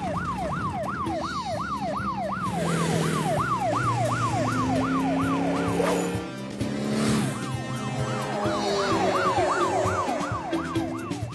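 Cartoon police car siren wailing in a fast up-and-down yelp, about three sweeps a second. It breaks off for about a second midway, with a brief rushing sound, then resumes. Background music plays underneath.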